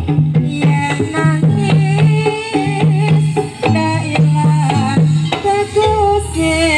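Live Javanese gamelan accompaniment for a jaranan dance: drum strokes under a run of struck pitched notes.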